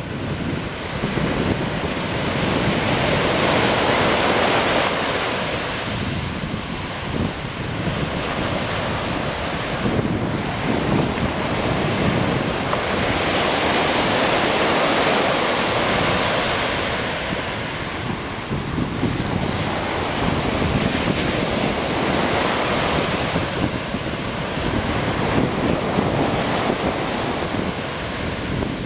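Ocean surf breaking and washing up the beach, the noise swelling and fading as each wave comes in, with wind buffeting the microphone.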